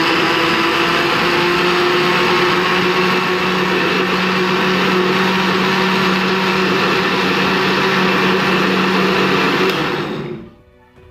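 Electric countertop blender running steadily at full speed, puréeing a liquid banana, egg and coconut-milk batter; it is switched off about ten seconds in and the sound falls away.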